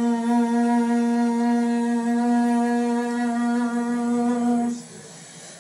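A single held note from a vocal range test playing through a laptop, perfectly steady in pitch, stopping near the end.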